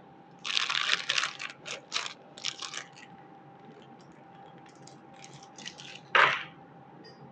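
Handling noises: short bursts of rustling and scraping in two clusters, then one louder scuff about six seconds in, over a faint steady hum.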